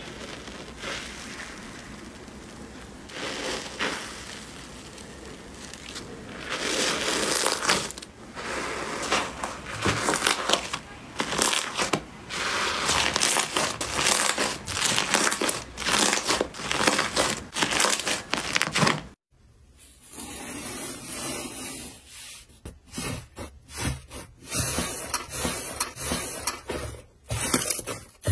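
Hands pressing and kneading fluffy slime, giving irregular crackling, squelching bursts. About two-thirds of the way through, the sound cuts off suddenly and gives way to sparser crackles from a different slime.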